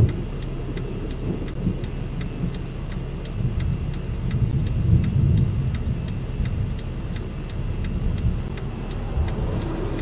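A low rumble of wind under an even ticking about three times a second, swelling a little about halfway through.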